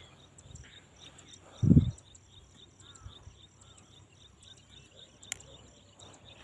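Crickets chirping in a steady, regular rhythm. A dull low thump comes a little under two seconds in, and a sharp click about five seconds in.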